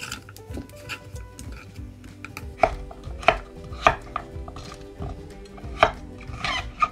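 Kitchen knife cutting winter squash (kalabasa) on a wooden cutting board. Soft cutting strokes come first, then from about two and a half seconds in there are several sharp knocks as the chef's knife chops through the squash onto the board, roughly half a second to two seconds apart.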